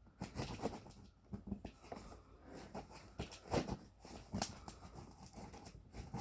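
Knife slitting packing tape on a cardboard box, a quiet run of short scratches and scrapes with cardboard rustling.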